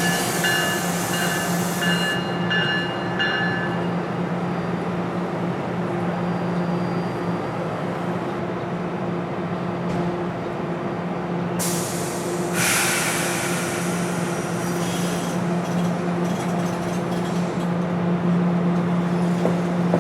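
A train running through a station with a steady low hum. High-pitched tones sound in the first few seconds, and a burst of hissing noise comes about twelve seconds in.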